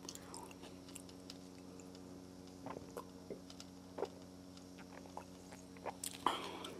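Faint close-up mouth sounds of drinking from a glass mug: a few soft clicks and gulps, spaced a second or so apart, over a steady low hum. A brief louder noise comes near the end.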